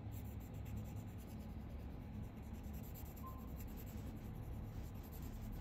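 A watch-movement sleeve held on a pegwood stick and rubbed on micron abrasive paper in rapid short strokes, a faint fine scratching, as the too-tall sleeve is taken down to height. A low steady hum runs underneath.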